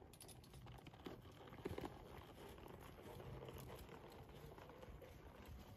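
Faint hoofbeats of a horse moving off at a walk on soft arena sand, with a couple of slightly louder knocks a little under two seconds in.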